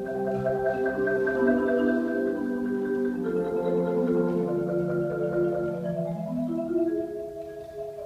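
Marimba playing a slow melody over low chords, the notes held as rolls. The playing thins briefly near the end, then carries on.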